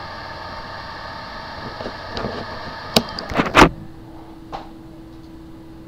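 Sample recording of a hard drive with a bad motor IC: a steady mechanical hum, then a few sharp clicks about three seconds in, after which only a faint steady low tone remains.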